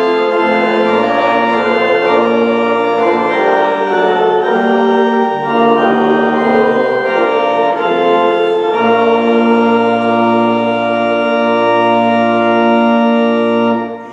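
Organ playing a hymn in sustained chords, ending on a long held final chord that stops just before the end.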